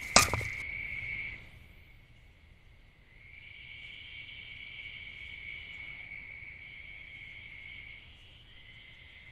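A steady, high insect trill, a chorus of crickets or similar insects. It cuts out about a second in and comes back about two seconds later, with a short break near the end.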